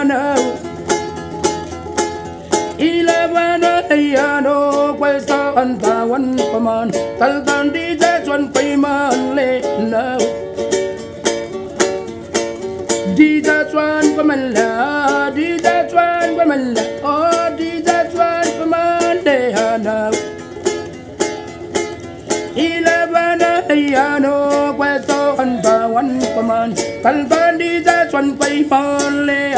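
Homemade wooden ukulele strummed in a steady, quick rhythm, playing the song's chords and melody as an instrumental break.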